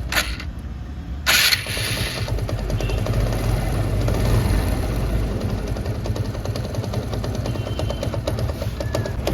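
TVS Apache RTR 160's single-cylinder engine running at idle with a rattling noise from inside the engine, a noise that fades when the revs are raised and comes back at idle. A short loud hiss about a second and a half in.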